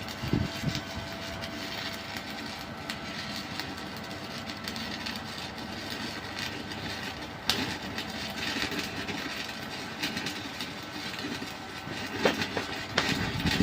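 Stick (SMAW) welding arc crackling and sizzling steadily, with irregular sharp pops.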